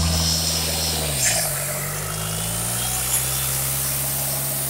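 The 2019 LDV T60's 2.8-litre four-cylinder turbo-diesel engine running during an engine test. About a second in, its speed drops from a faster idle and settles into a steady lower idle.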